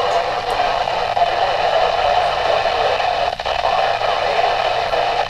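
Midland WR-120 weather radio's speaker putting out steady loud static with no intelligible voice, dipping briefly about three seconds in: the 162.475 MHz NOAA Weather Radio signal glitching, which the owner puts down to the Orlando transmitter cutting out and distant stations on the same frequency fighting each other and overloading the radio.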